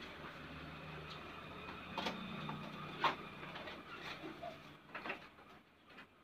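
A small boxed toy being handled: a few sharp clicks and knocks of the box and its packaging, over a faint steady hum.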